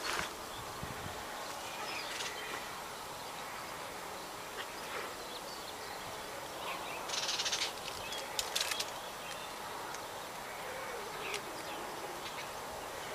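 Outdoor yard ambience: a steady background hiss with a few faint short chirps, and a brief burst of rustling noise about seven seconds in, followed by a few clicks.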